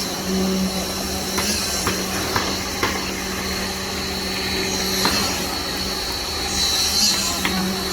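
KCP63 concrete pump truck running: a steady engine hum with a high whine over it, broken by scattered sharp knocks and clanks.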